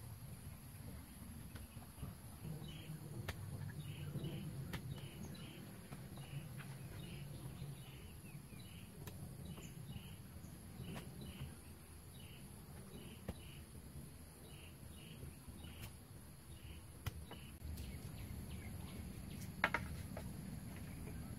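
Riverside jungle ambience: a steady high insect drone, a short chirping call repeated about twice a second that stops near the end, and a low rush of floodwater. A few light knocks of bamboo poles being handled, the sharpest one near the end.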